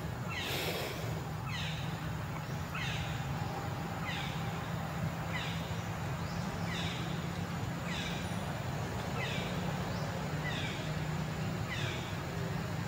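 Infant macaque crying: a steady run of short, whimpering calls, each falling in pitch, about one every second or so, over a steady low hum.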